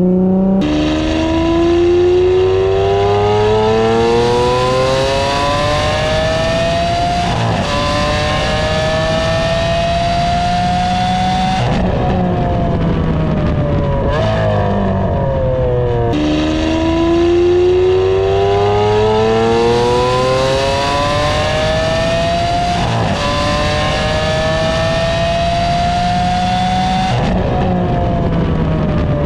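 Lamborghini Aventador's naturally aspirated V12 with a race exhaust, accelerating hard on a racetrack. The revs climb steadily, with short dips at gear changes about 7 and 12 seconds in and a brief lift near 14 seconds. The same run of about 15 seconds plays again from about halfway through.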